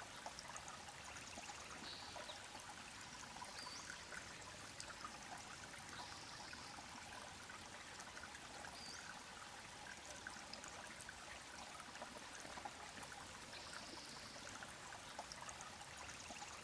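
Faint, steady rush of a creek flowing.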